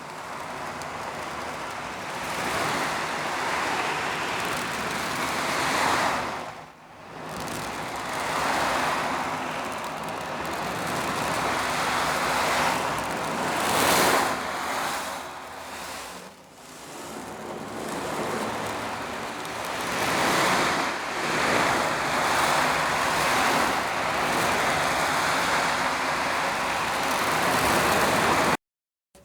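Foley imitation of sea waves: a rushing noise that swells and ebbs in long surges, like surf washing in and drawing back. It cuts off abruptly near the end.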